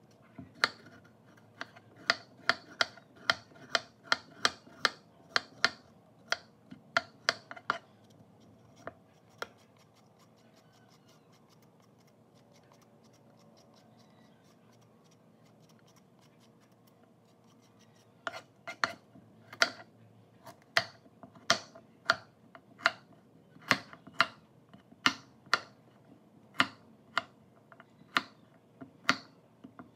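Kitchen knife knocking on a wooden chopping board while cutting a carrot, in sharp, separate strokes. A first run of strokes stops after about nine seconds. About eight seconds of quiet follow, then steady chopping at about two strokes a second resumes.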